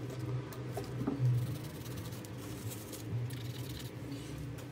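Quiet room with a steady low hum and a few faint handling sounds of a cloth and small objects on the desk.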